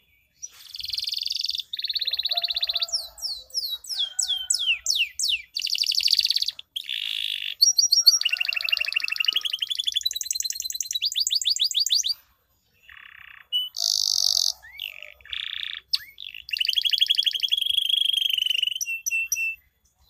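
Male canary singing a long, varied song: chirps running into fast trills and rolls, with a run of quick falling whistled notes a few seconds in and short breaks between phrases.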